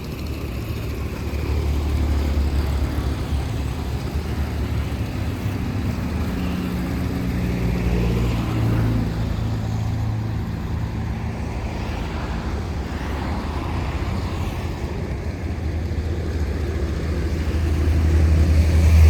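Low, steady engine rumble with a pitched hum that rises and falls in the middle, growing louder near the end.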